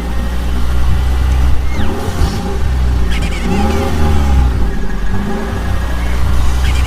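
A loud engine sound effect that revs up and down in a repeating cycle about every two seconds over a steady low hum, with a short rising whistle on each cycle.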